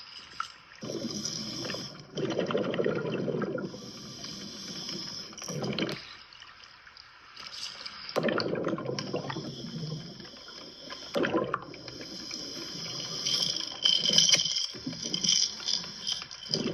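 Scuba diver's breathing heard underwater: a steady regulator hiss, with bursts of exhaled bubbles rumbling every few seconds.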